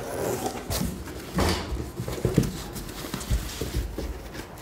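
Cardboard box and packaging being opened and handled: irregular knocks, taps and rustling.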